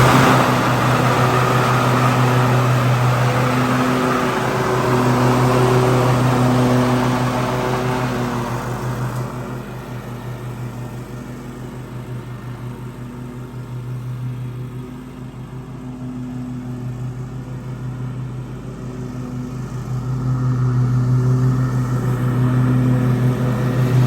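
Cub Cadet ZT1 50 zero-turn mower engine running steadily, back in working order after being restarted. It grows quieter in the middle and louder again after about twenty seconds.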